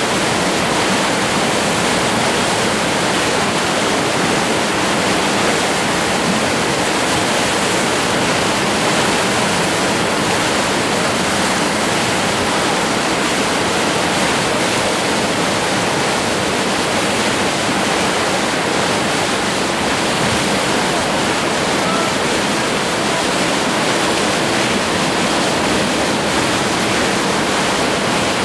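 Loud, steady rush of whitewater rapids: fast-moving river water churning without a break.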